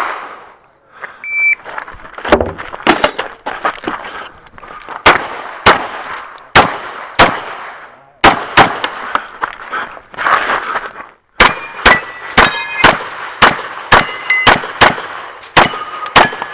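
A short shot-timer beep, then a centerfire pistol firing a long string of shots, often in quick pairs, with a brief pause about eleven seconds in. In the later shots, steel targets ring with a clang after hits.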